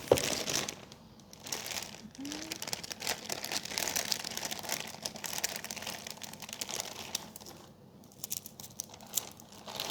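Packaging being handled and unwrapped: a dense run of rustling and crinkling with many small clicks, easing off after about seven seconds.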